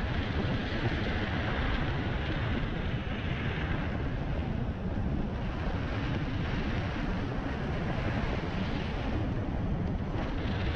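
Steady rushing noise of riding a Begode MSX electric unicycle: wind on the microphone and tyre rumble on the road.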